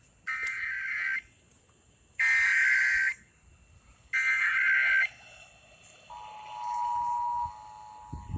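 Emergency Alert System test: three short bursts of SAME header data tones, each about a second long with about a second between them. About six seconds in, the steady two-tone EAS attention signal begins.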